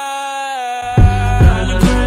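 Background music: for about the first second the bass and beat drop out, leaving held chords, then the beat returns with a heavy low drum hit about a second in and another shortly after.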